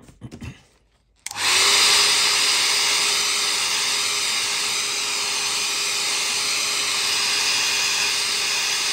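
Handheld hairdryer switched on about a second in and running steadily, a loud blowing noise with a constant hum, drying freshly applied leather colourant.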